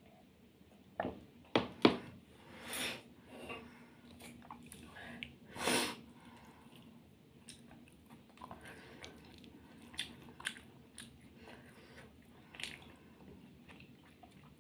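Close-up mouth sounds of a person chewing fried fish, with a few sharp crunching clicks, the loudest just under two seconds in, and scattered smaller smacks throughout.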